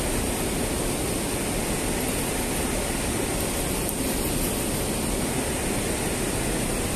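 Steady rushing of river water: an even noise that holds at one level without breaks.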